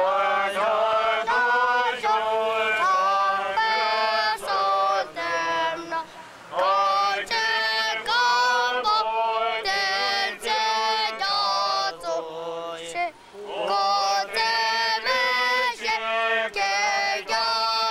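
Protest slogans shouted in unison by a group of demonstrators, in short rhythmic phrases with brief pauses between them, a child's high voice loudest and closest.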